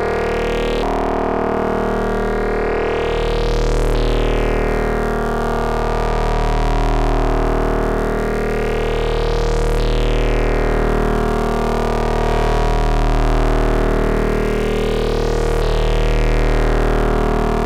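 Modular synthesizer drone from Rossum Trident oscillators ring-modulated by a slightly detuned external oscillator, played dry with the distortion switched off. It is a steady, sustained tone cluster whose brightness slowly swells and fades, about every six seconds, from the beating of the detuned oscillators.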